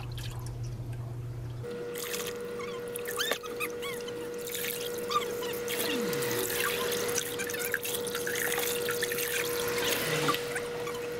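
Water poured from a plastic cup over a puppy standing in a tub of bathwater, trickling and splashing back into the water in repeated scoop-and-pour strokes. From about two seconds in a steady hum runs underneath.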